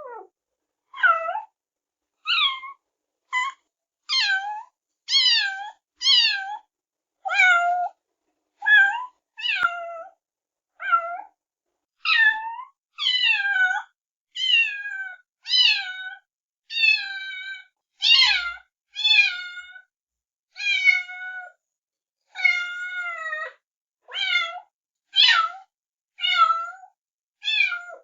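Kittens meowing over and over: a quick series of short, high-pitched meows, about one a second, most of them falling in pitch.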